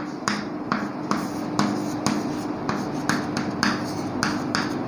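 Chalk writing on a chalkboard: a word written in short scratching, tapping strokes, about three or four a second.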